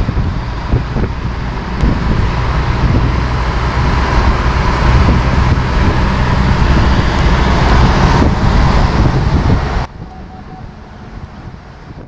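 Wind and road noise inside a 2016 Buick Cascada driving with its convertible top down, with wind buffeting the microphone. About ten seconds in it drops suddenly to a quieter, steadier road noise.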